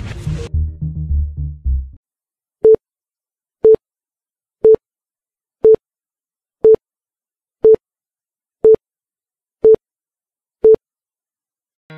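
Electronic dance music that stops about two seconds in, followed by an interval timer beeping once a second: nine short, identical beeps at one mid pitch, counting off the rest period.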